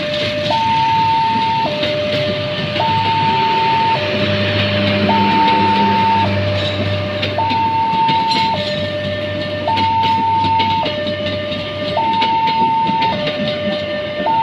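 A railway level-crossing warning alarm sounds a steady two-tone high-low signal, switching pitch about once a second. Passenger coaches run past behind it with a rushing rail noise and a clatter of wheels over the rails, signalling that the crossing is closed while the train goes through.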